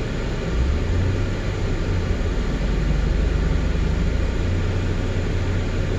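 Cadillac SRX's 3.6-litre V6 engine running at light throttle, a steady low drone; the revs come up a little about half a second in and hold.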